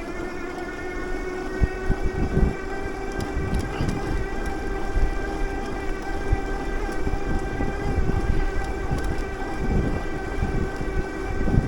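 Electric bike motor running at cruising speed with a steady whine, over wind noise on the microphone and the rumble of tyres on the road, with a few low thumps from bumps or gusts.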